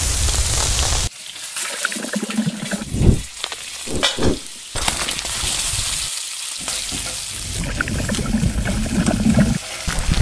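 Food sizzling in a hot pot as a whole raw chicken drops into melted butter, a loud hiss for the first second that cuts off abruptly. Then quieter stretches of sizzling come and go, with scattered clicks and knocks as more ingredients go in.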